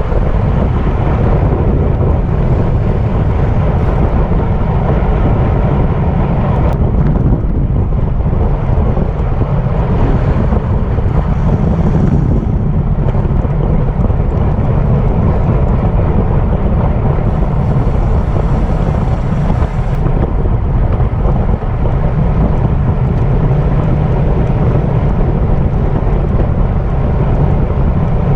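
Wind rushing over the microphone of a camera carried on a bicycle at racing speed: a loud, steady low rumble that does not let up.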